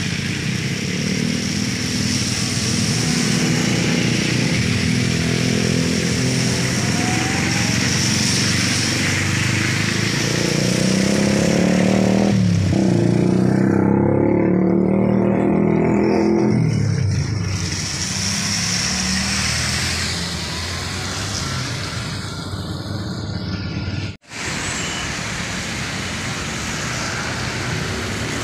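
Road traffic in the rain: car, truck and motorcycle engines passing through an intersection, with tyres hissing on the wet road. An engine swells to its loudest a little before halfway and fades off a few seconds later, and the sound cuts out for an instant near the end.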